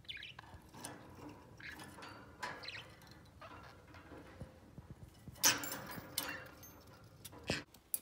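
Budgerigars chirping and chattering, with short twittering calls throughout. There are a couple of louder sharp clattering bursts in the second half, the loudest about two-thirds of the way through.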